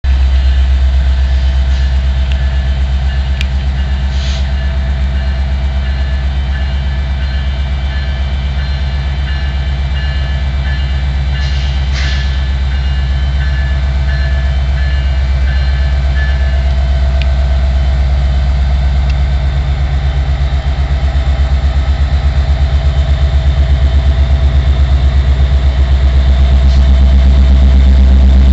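EMD SD70ACe diesel-electric locomotive's 16-cylinder two-stroke diesel engine working as it pulls a freight train away from a stop, a loud low throb that grows louder as the locomotive draws near.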